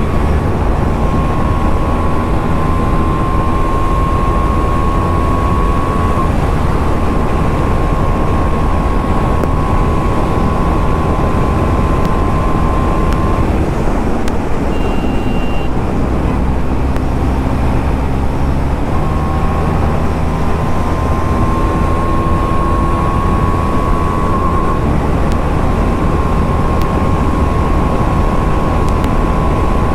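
KTM Duke 390's single-cylinder engine at high revs through an Akrapovic exhaust, in top gear at around 150 km/h, its note climbing slowly as the bike gains speed. About halfway through the note falls away briefly, then climbs again. Heavy wind rush on the microphone runs under it.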